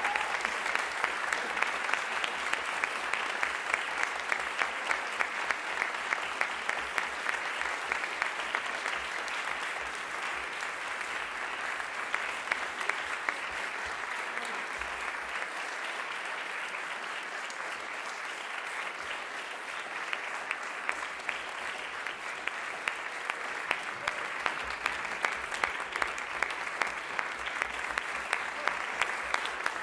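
Audience applauding steadily, easing off a little in the middle and picking up again after about twenty seconds.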